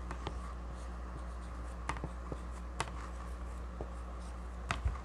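Dry-erase marker writing on a small whiteboard: light scratching with short sharp taps as the tip strikes the board, a cluster of them near the end. A steady low hum underneath.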